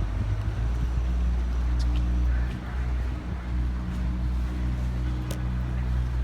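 River tour boat's motor running steadily, a low hum with a few steady tones over it.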